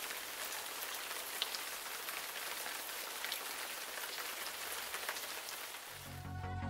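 Rain falling on a lake's surface: a steady hiss of drops with occasional louder single drop splashes. Near the end the rain fades out and music begins.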